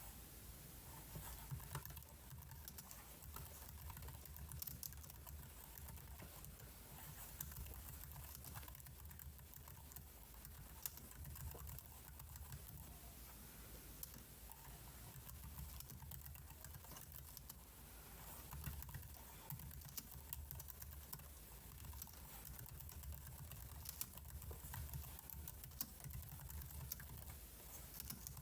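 Computer keyboard typing: scattered, irregular key clicks with a faint low rumble underneath.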